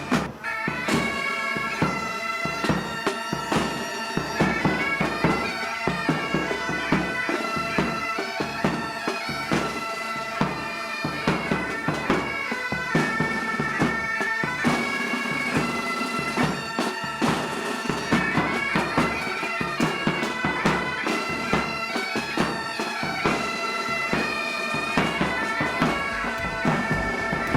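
Bagpipes playing a tune in sustained, stepping notes, with frequent drum strokes underneath.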